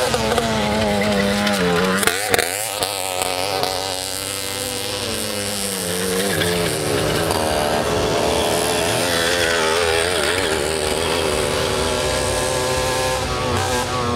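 Small moped engines running hard at racing speed, their pitch wavering as the revs rise and fall; the revs dip and climb again about two seconds in.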